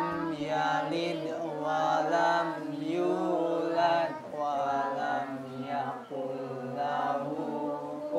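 Islamic devotional chanting: a melodic voice sings long, wavering, ornamented phrases, with brief pauses between them.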